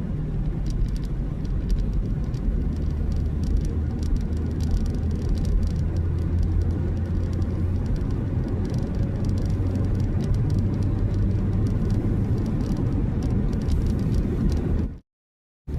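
Steady low drone of a car driving on a wet road, heard from inside the cabin, with faint scattered ticks over it. The sound cuts out to silence about a second before the end.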